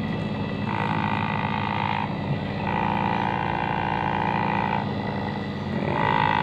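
Handheld Dolphin infrared electric vibrating massager running, its motor humming steadily while pressed against the forearm. A higher buzz cuts in and out three times over the hum.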